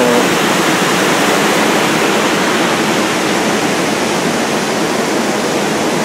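Steady rush of falling water from a waterfall: an even wash of noise with no breaks.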